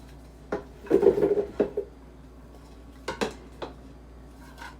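Kitchen dishes and cutlery clattering. There are a handful of separate clinks and knocks, with a busier cluster about a second in and a couple more around three seconds.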